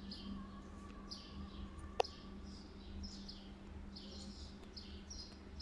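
Faint bird chirping in the background, short high chirps about twice a second, with a single sharp click about two seconds in over a low steady hum.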